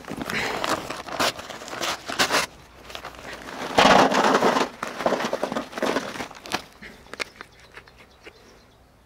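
Bag of charcoal briquettes crinkling as it is handled, then briquettes poured from the bag into a steel-can furnace, a loud rattling rush about four seconds in. Smaller clicks and rustles follow.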